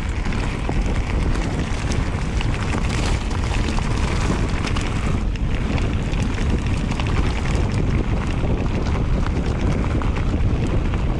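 Wind buffeting the microphone of a mountain bike riding at speed on a gravel track, with tyres rumbling over the gravel and many small rattling clicks.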